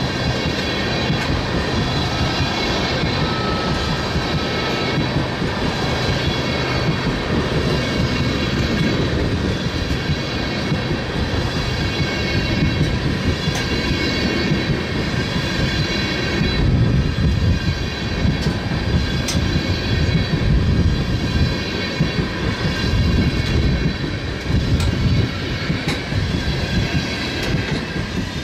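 Freight train tank cars rolling past at close range: a steady rumble of steel wheels on rail with occasional clicks. A faint high-pitched squeal comes from the wheels throughout. The rumble grows louder about halfway through.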